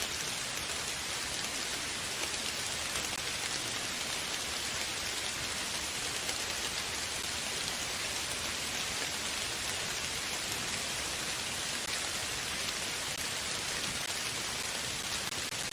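Steady rain falling on a surface: an even hiss of many drops, unchanging in level.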